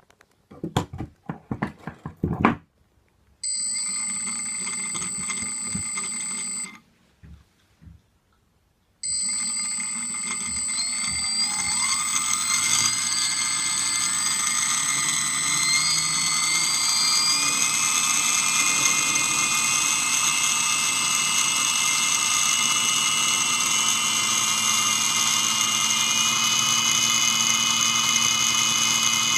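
A small brushless outrunner motor spinning a belt-driven pair of HDPE pulleys, with a high electric whine. After a few clicks and a short steady run that stops, the motor starts again about nine seconds in and its whine climbs in pitch in steps as it speeds up, then holds high.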